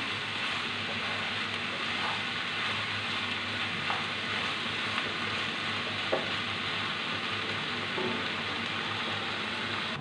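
Onions and dried ribbonfish (churi shutki) sizzling steadily in hot oil in a nonstick pan, stirred with a wooden spatula that gives a few faint knocks against the pan.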